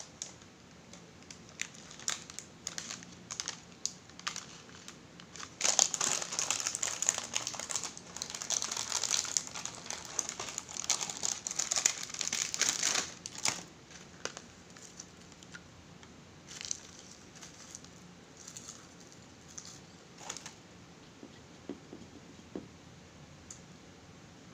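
Plastic packet of roasted seaweed snack crinkling as it is handled and pulled open, with a stretch of loud, dense crinkling in the middle and scattered light crackles before and after.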